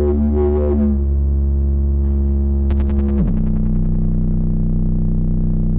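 Electronic synthesizer drone: a loud, sustained low bass note under a stack of steady tones, with a brief warble near the start. A sharp click comes a little before three seconds in, and the whole chord then glides down in pitch and settles lower.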